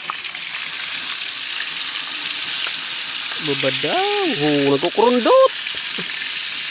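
Tilapia frying in hot oil: a steady high sizzling hiss. About halfway through, a person's voice briefly sounds over it.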